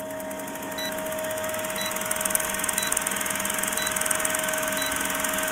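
Old film projector sound effect: a steady running clatter with a constant hum tone, and a faint short tick about once a second, as for a film countdown leader.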